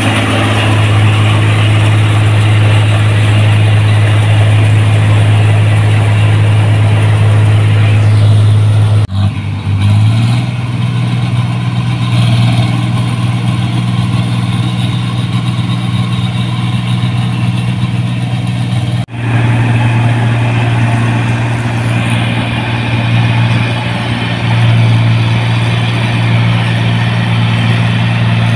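New Holland combine harvesters running steadily while harvesting rice: a loud, even engine hum with machinery noise over it. The sound changes abruptly twice, about a third and two thirds of the way through, as one machine gives way to another.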